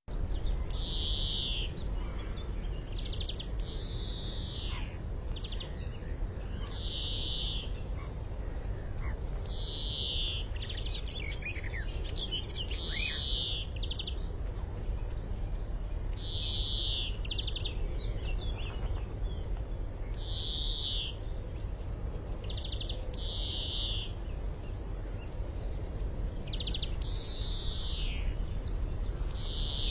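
Male European greenfinch singing to attract a female: buzzy wheezing notes alternate with fast trills and now and then a long falling note, the phrases recurring every few seconds. A steady low rumble runs underneath.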